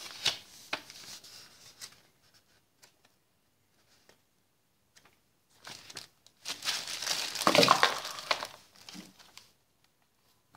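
Paper instruction booklet and packaging rustling and crinkling as they are handled, soft at first, then louder from about six to nine seconds in.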